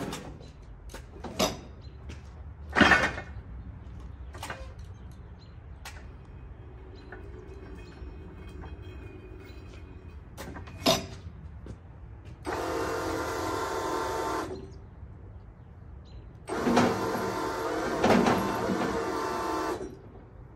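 Battery-electric Big Joe walkie stacker forklift: several sharp clicks and clunks from its controls and forks, then its electric hydraulic pump motor runs twice, about two and three seconds each, with a steady whine as it lifts the load.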